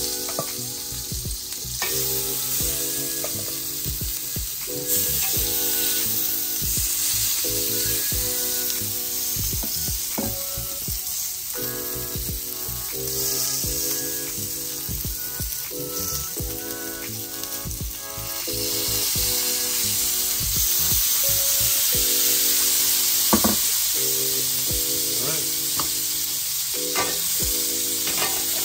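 Octopus pieces sizzling on a hot grill, a steady searing hiss that gets louder about two-thirds of the way through.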